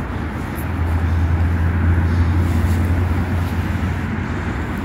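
Steady noise of busy road traffic, with a low rumble that swells about half a second in and fades away near the end as a vehicle passes.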